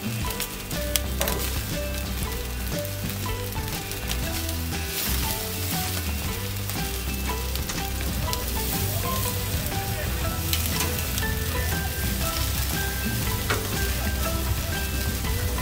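Chicken wings sizzling on a hot grill grate, with scattered pops and ticks. Near the end, metal tongs tap and scrape the grate as the wings are turned.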